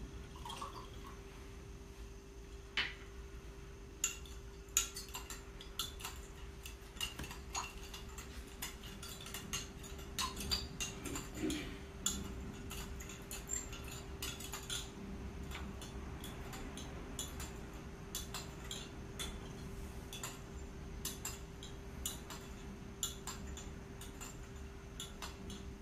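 Kitchen utensils clinking and tapping against dishes and a pot at irregular intervals, over a steady low hum.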